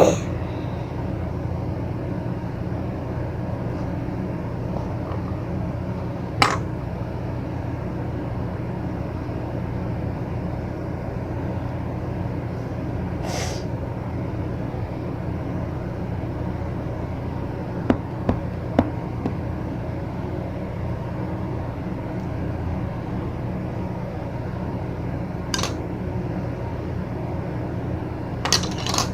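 Steady low mechanical hum, with a few short light clicks and taps from handling plastic Play-Doh molds: single taps scattered through, three in quick succession about two-thirds of the way in, and two more near the end.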